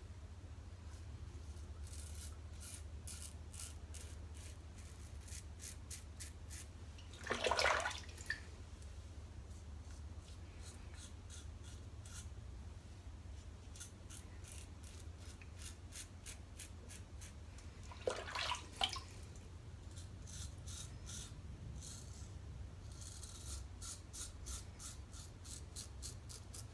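Double-edge safety razor (Merkur Futur with a Feather blade) scraping through lathered stubble across the grain: runs of quick, crisp crackling strokes as the whiskers are cut. Twice a brief louder swish breaks in, about a third of the way in and again about two-thirds in.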